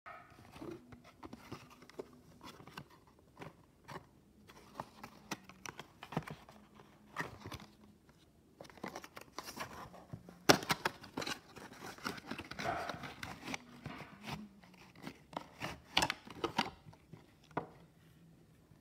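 Cardboard puzzle-cube box being handled and opened by hand: scattered scrapes, taps and rustles of paper board, with the plastic cube knocking against it as it is slid out. The sharpest knocks come about ten seconds in and again around sixteen seconds.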